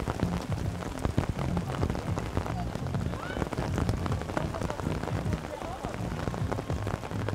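Dense, steady crackling noise on the microphone with a low rumble underneath, like wind buffeting an outdoor camera microphone.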